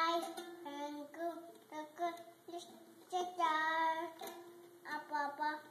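A young child singing, holding long notes with short breaks between them.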